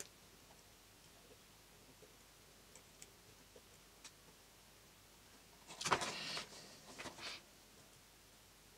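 Quiet room tone with a few faint ticks, then a brief rustle and clicking about six seconds in: hands handling thin motor and ESC wires at a helping-hands clamp during soldering.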